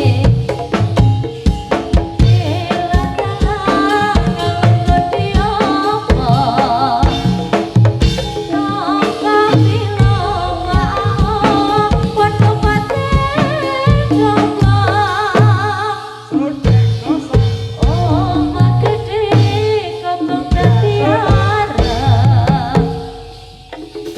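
Javanese gamelan music played live, with kendhang hand drums beating a steady, busy pattern under metallophone tones and a wavering melodic line. It dips briefly near the end.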